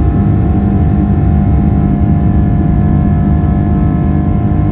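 Boeing 777-300's Rolls-Royce Trent 800 turbofans at takeoff thrust, heard from inside the cabin: a loud, steady rumble under a drone of several fan tones, as the jet rotates and lifts off.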